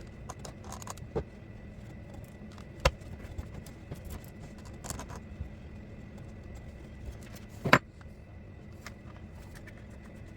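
Scattered small clicks and clinks of tools and parts being handled, with two sharp knocks, one about three seconds in and a longer, louder one near eight seconds, over a steady low hum.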